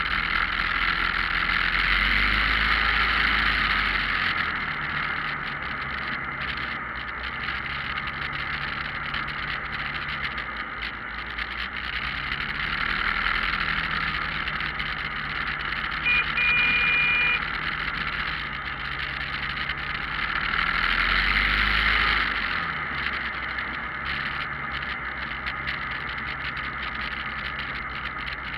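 Motorcycle engine running while riding in a group ride, with wind rushing over the microphone; the engine note rises and falls with the throttle and swells louder twice. A short high beep sounds about midway.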